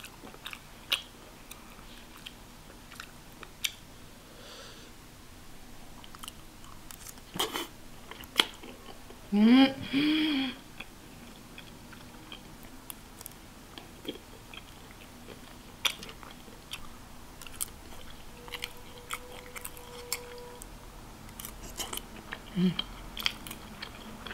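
Close-up chewing and biting while eating, with scattered sharp clicks. About nine seconds in, a short hummed vocal sound from the eater, the loudest moment, rising and falling in pitch.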